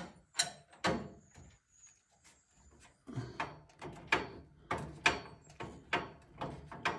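Phillips screwdriver backing a tight factory-fitted screw out of the metal frame of a Cougar Conquer 2 PC case: short metallic clicks and creaks as the handle is turned, a couple at first, then a regular run of about two a second from about three seconds in.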